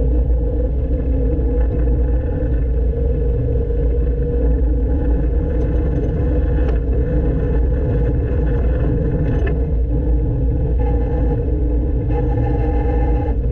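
1970s Poclain LC80 excavator's diesel engine running steadily with a deep rumble. A higher steady tone joins it briefly about eleven seconds in and again near the end. The owner suspects the engine has a misfire or fueling issue.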